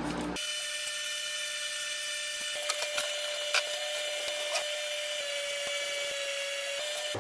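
A small high-speed electric power tool running at a steady high pitch, with a few sharp ticks about three to four and a half seconds in.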